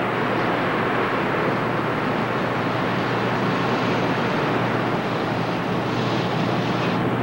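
Steady, even industrial metalworking noise from abrasive grinding of steel and welding. A brighter hiss joins about six seconds in and cuts off suddenly about a second later.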